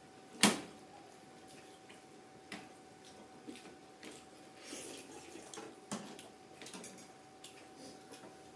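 A sharp click about half a second in, then scattered softer clicks and ticks over a faint steady hum.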